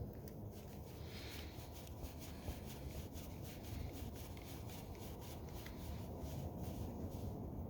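A small screwdriver turning a screw into a spinning reel's body: faint scraping with many light ticks.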